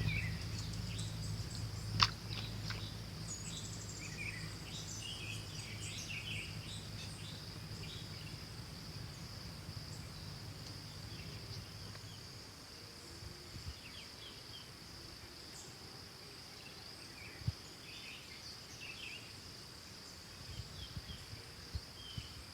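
Outdoor ambience: insects keep up a steady high buzz while birds chirp here and there. A low hum fades out about halfway through, and there is a sharp click about two seconds in.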